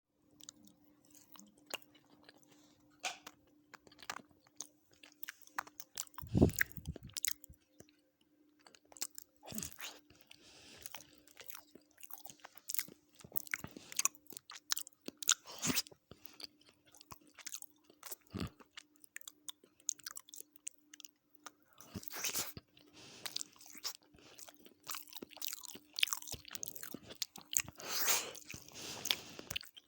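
Close-miked eating: irregular crunchy bites and wet chewing, with a few louder clusters of crackling. A faint steady hum runs underneath.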